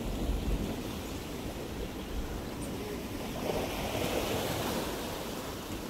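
Sea surf washing on a rocky shore, with wind rumbling on the microphone; the washing swells up about three and a half seconds in and eases off again.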